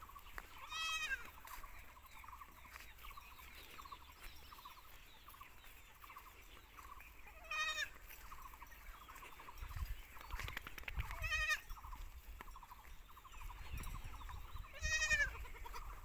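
Black Bengal goats bleating: four short, quavering calls spaced a few seconds apart.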